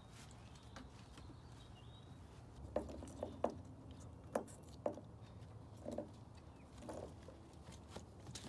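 A puppy's paws tapping on wooden deck boards and its teeth working on a pinecone: a handful of faint, sharp taps and knocks, bunched through the middle, over a low steady hum.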